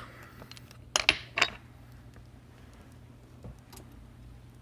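A few sharp metallic clinks in quick succession about a second in, from a small metal repair tool or part knocking on the work bench, over a faint steady electrical hum.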